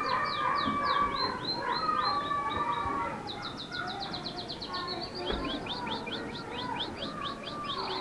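Roller canary singing: fast trills of short repeated high notes, about eight a second, with a short break about three seconds in, over lower drawn-out whistled notes.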